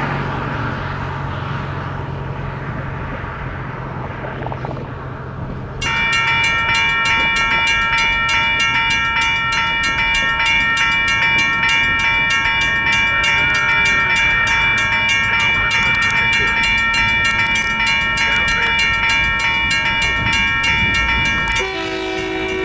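A steady low hum, then about six seconds in a Federal Signal mechanical railroad-crossing bell starts ringing, its hammer striking the gong rapidly and evenly, and keeps ringing. Near the end a train horn sounds over the bell.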